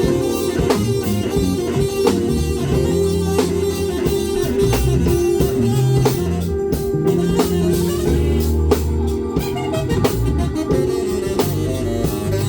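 A live band playing: guitar over a bass line and drum kit, with a steady beat.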